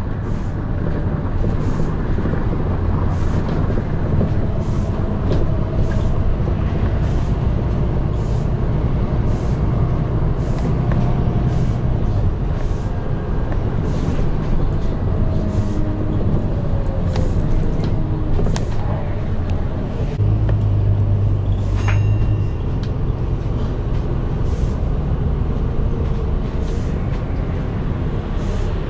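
London bus on the move: a steady low engine and drivetrain drone with road noise and light rattles. A whine falls in pitch partway through, and near the end comes a brief high-pitched tone.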